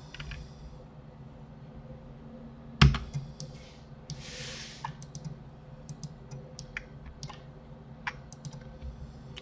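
Computer keyboard keys and mouse clicks pressed now and then while working in 3D software, with one sharp, loud click about three seconds in, over a low steady hum.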